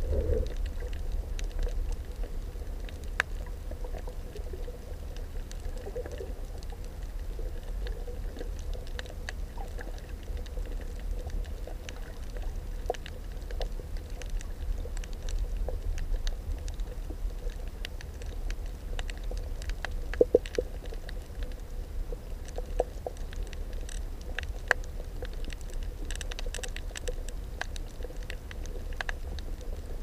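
Underwater ambience on a coral reef: a steady low rumble of moving water with scattered sharp clicks and crackles throughout.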